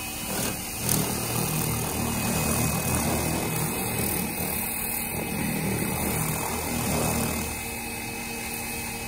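Pressure washer running, its turbo nozzle spraying water onto a car's body. A steady low hum from the pump comes in about a second in and eases near the end, over the hiss of the spray.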